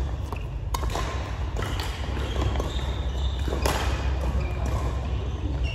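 Scattered sharp thuds and knocks over a steady low hum.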